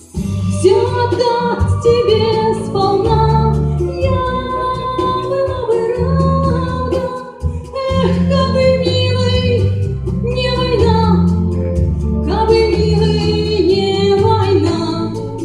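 Song: a woman singing over instrumental accompaniment with a low bass line.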